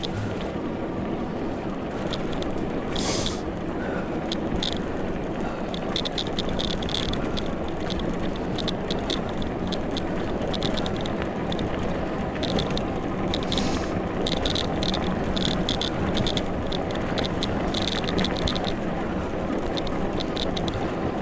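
Cyrusher Trax fat-tyre e-bike and its towed trailer rolling over a muddy track: a steady rumble of tyres with many small clicks and rattles, thickest through the middle.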